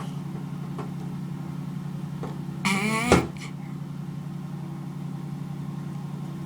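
Male leopard tortoise calling while mating: one drawn-out, pitched call about half a second long, rising and then dropping sharply at the end, over a steady low hum.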